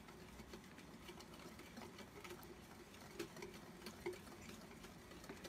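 A metal utensil whisking Dalgona coffee by hand in a ceramic bowl: faint, quick, irregular clicking and tapping against the bowl as the coffee mixture is beaten to a foam.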